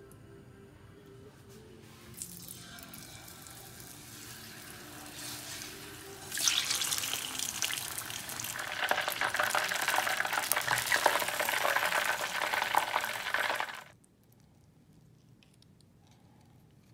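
Beer-battered cod sizzling and crackling in hot deep-frying oil. The sizzle grows much louder suddenly about six seconds in and stops abruptly about three seconds before the end.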